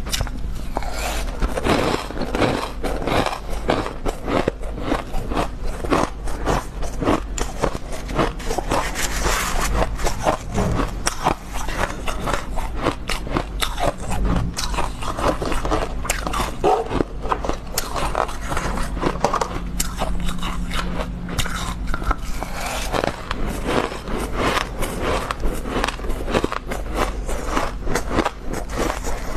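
Close-miked biting and crunching of mouthfuls of powdery freezer frost, with a metal spoon scraping through the frost in the bowl. Dense, irregular crunches throughout.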